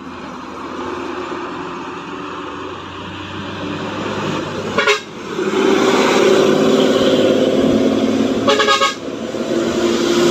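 Intercity buses' diesel engines coming round a hairpin bend close by, growing louder as they pass. Two horn blasts sound, a short one about five seconds in and a longer, pulsing one near nine seconds.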